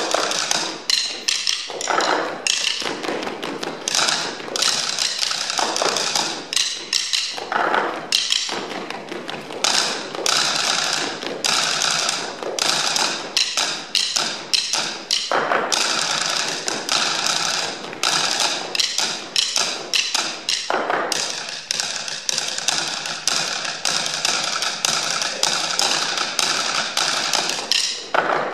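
Table percussion: several players tapping and striking wooden tabletops with sticks in a fast, dense rhythm of sharp knocks and taps.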